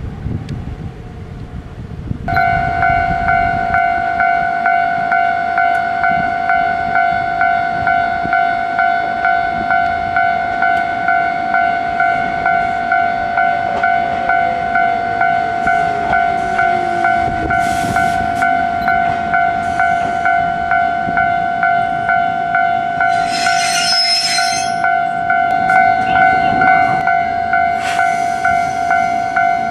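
Japanese level-crossing warning bell clanging steadily at about two strokes a second, starting suddenly a couple of seconds in. Under it an Ichibata Electric Railway 3000-series electric train pulls in, its motor whine falling in pitch as it slows, with short hissing bursts near the end.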